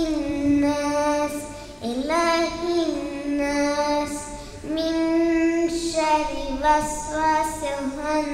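A young girl reciting the Quran in Arabic as a melodic chant, drawing out long held notes that glide slowly up and down, with short pauses for breath between phrases.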